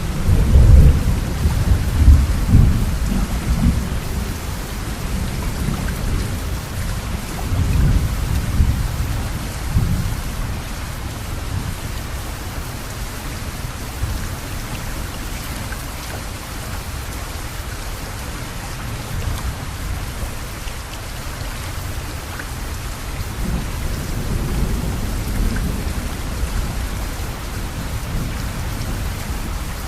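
Steady rain falling in a thunderstorm, with low rolls of thunder: the loudest in the first few seconds, another about eight seconds in, and a softer one a little past twenty seconds.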